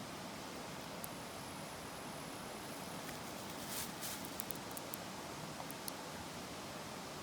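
Wood fire burning in a fire stand: a steady low hiss with scattered sharp crackles and pops. A brief louder flare comes a little under four seconds in, followed by a quick run of pops.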